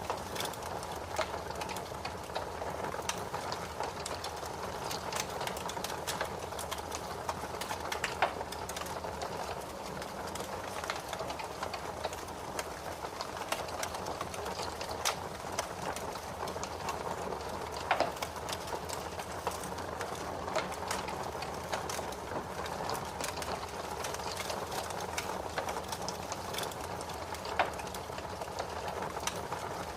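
Wood fire burning in a fireplace: a steady soft hiss with frequent small crackles and a few sharper pops, the loudest about eight, eighteen and twenty-eight seconds in.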